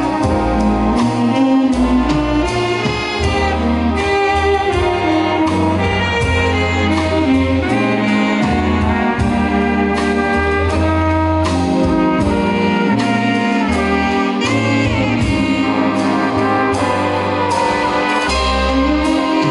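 Big band playing live: saxophone and brass sections holding chords over a moving bass line, with steady strokes from the drums.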